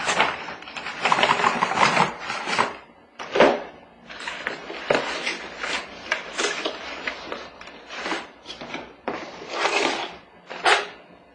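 A cardboard packaging insert being handled and shifted on a wooden floor, with plastic mount parts being pulled from it: a series of irregular scrapes and rustles with a few sharper knocks.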